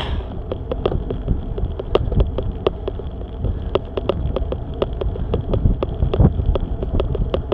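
A bicycle climbing a hill, heard from on the bike: a steady low rumble of wind and road, with sharp ticks about three times a second and one breathy burst right at the start.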